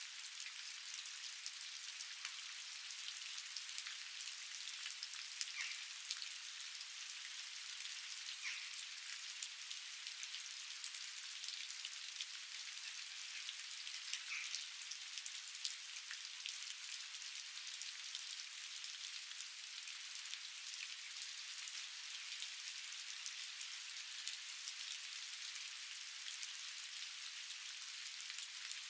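Steady rain falling, an even high hiss dotted with many separate drop ticks, with no thunder or low rumble.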